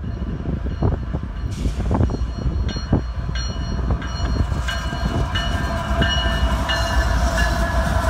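CSX freight train's diesel locomotives approaching and running past at a grade crossing, a heavy steady rumble growing as they reach the microphone. A crossing bell rings repeatedly over it, about every two-thirds of a second.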